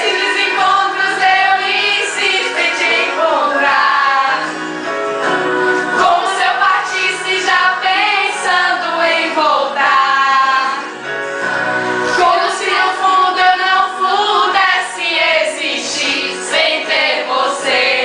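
Several women singing a sertanejo love song together, along with the music playing.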